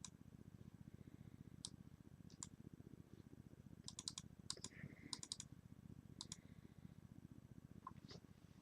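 Near silence with a low steady hum, broken by scattered faint clicks at a computer, several coming in quick runs of three or four.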